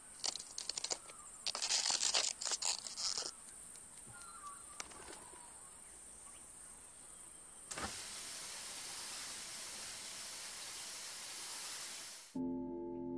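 Ambient sound-effects bed: irregular crackling clicks for the first few seconds, then a steady hiss that cuts off suddenly near the end, where sustained music notes come in.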